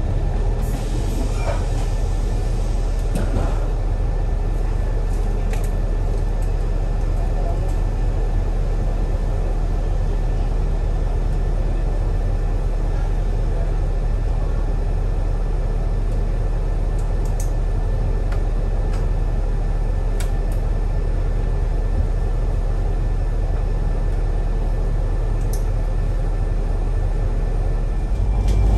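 Alexander Dennis Enviro500 double-decker bus's diesel engine idling at a stop, heard from inside on the upper deck as a steady low rumble. A brief hiss comes about a second in.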